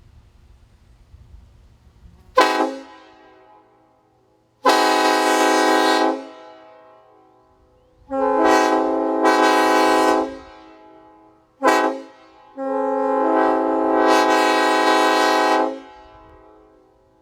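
Homemade PVC replica of a Nathan K5LLA five-chime train horn sounding its chord. A short toot comes about two seconds in, then four blasts in the long, long, short, long grade-crossing pattern. Each blast cuts off with a brief fading ring.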